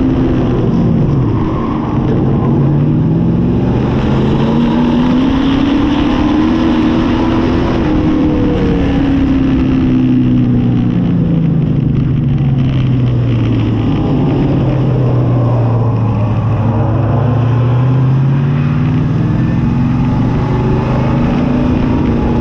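Pure stock V8 dirt-track race car's engine heard on board at racing speed, its pitch swinging up and down as the throttle comes on and off around the track. It dips about a second in, climbs for several seconds, falls away through the middle and climbs again near the end.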